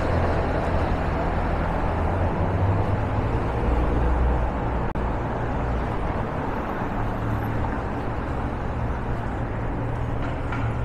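Downtown street traffic: a steady wash of road noise from passing cars and other vehicles, with a continuous low engine hum underneath.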